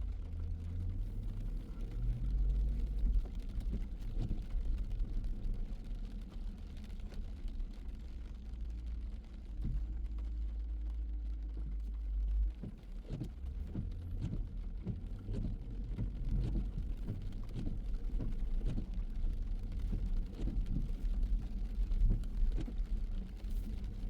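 A car driving in the rain: a steady low road rumble, with many small irregular ticks of rain hitting the car, more of them in the second half.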